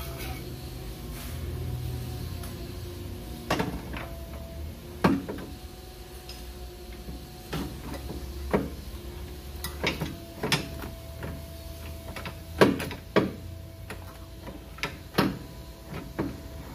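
Irregular metal clanks and knocks, about a dozen of them after the first few seconds, as a lower control arm is worked into place in a car's front suspension. A faint steady hum runs underneath.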